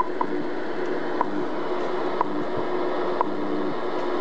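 Realistic DX-66 portable radio receiving a shortwave time-signal station: a short tick once each second over steady static hiss, with a steady low tone underneath.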